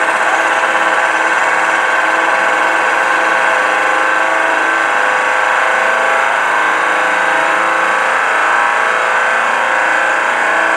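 Competition car audio system played at full volume in a sound-off, a steady, loud bass-heavy buzz that overloads the microphone.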